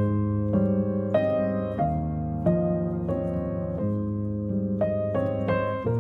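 Background piano music: slow notes and chords struck about once or twice a second, each left to ring and fade.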